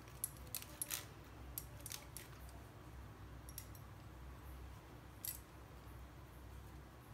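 Flat metal hand grater grating cheese: faint, irregular scrapes and clicks of the metal blade, a handful of them, the sharpest about a second in and again about five seconds in.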